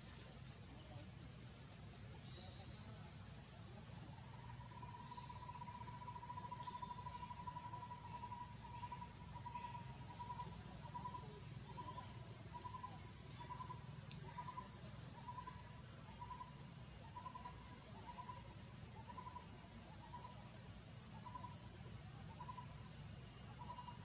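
Faint forest ambience of insects and birds: a high chirp repeats about three times every two seconds throughout, and from about four seconds in a steady mid-pitched trill begins, later breaking into a pulsed call at the same pace.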